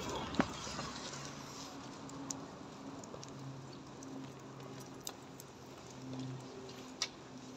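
Faint street background with a low droning hum that comes and goes in stretches of a second or two, and a few sharp clicks of the handheld phone being handled.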